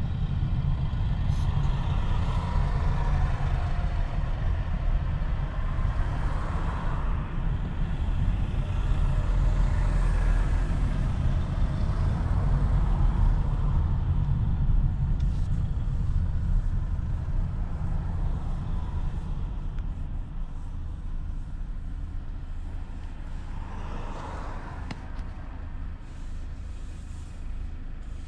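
Road and engine noise of a 2022 Kia K8 with its 2.5-litre four-cylinder petrol engine, heard from inside while it drives in town: a steady low rumble with some passing swells. It fades gradually over the second half.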